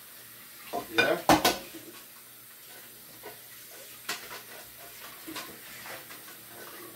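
Stainless steel cooking pot handled at a kitchen sink: a few loud metallic clanks about a second in, then lighter knocks.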